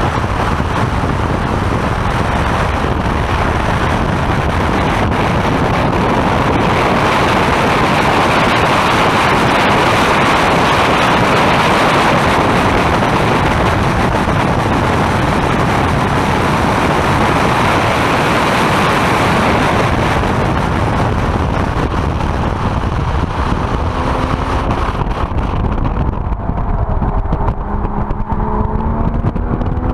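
Porsche sports car driven at track speed, heard from inside the open-window cabin: loud, steady wind and road noise. Near the end the rush eases and the engine's note comes through, its pitch falling and then climbing again.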